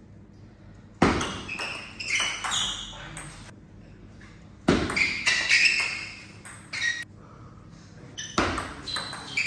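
Table tennis ball being hit back and forth between rubber paddles and bouncing on the table. There are three short runs of quick clicks: about a second in, around the middle, and near the end, each opening with a louder knock.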